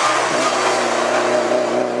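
Mitsubishi Lancer Evolution rally car's turbocharged four-cylinder engine running hard through a tight bend, its note held fairly steady.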